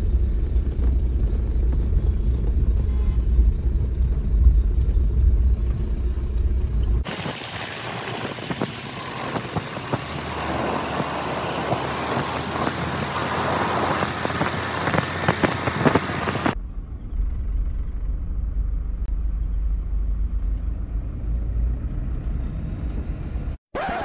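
Diesel car engines running with a deep, steady low rumble. For about ten seconds in the middle this gives way to a broader rushing hiss of a car moving on the road, and then the rumble returns.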